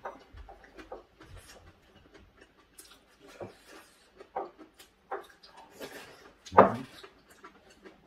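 Two people eating at a table: chewing and soft mouth noises, with small clicks of chopsticks and a spoon against bowls and the earthenware stew pot. A short, louder mouth sound comes about six and a half seconds in.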